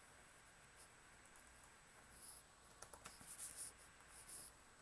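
Faint computer keyboard keystrokes and clicks, a scattered run of taps in the second half, over quiet room tone.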